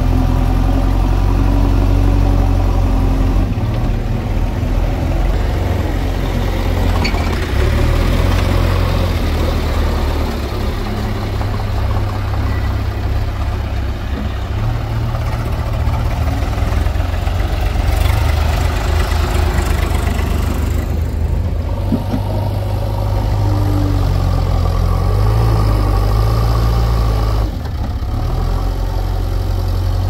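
Heavy diesel engine running under working load, its low drone stepping up and down every few seconds.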